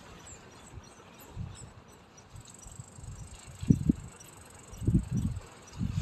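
Outdoor shoreline ambience: irregular low rumbling thumps, mostly in the second half, over a steady hiss and faint high chirping of insects.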